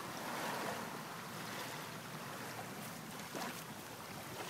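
Steady outdoor background noise: an even, faint hiss with a soft knock about three and a half seconds in.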